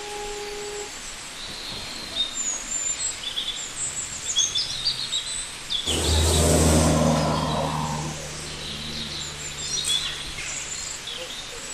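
Small birds chirp and tweet throughout. About six seconds in, a sudden loud rush sets in over a low, steady motor hum, which fades away over the next few seconds.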